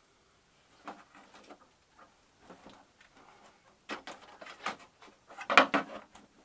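Scattered clicks and light knocks of flat-screen TV parts being handled and pried at during disassembly, with a louder cluster of sharp clatter about five and a half seconds in.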